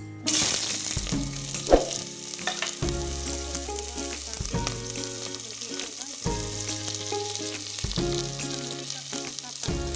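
Onion pieces dropped into hot cooking oil in a stainless steel pot, crackling and sizzling steadily as they start to fry, with a sharp click about two seconds in.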